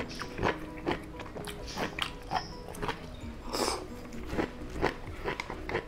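A person eating soup with chopsticks from a glass bowl: irregular clicks of the chopsticks against the glass, chewing, and a slurp about three and a half seconds in, over soft background music.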